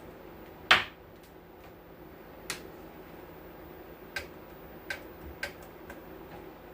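Clicks and light taps of hand tools at an electronics repair bench as an IC is about to be removed from a mixer's circuit board: one loud sharp click near the start, then four or five fainter ticks spread out, over a steady low hum.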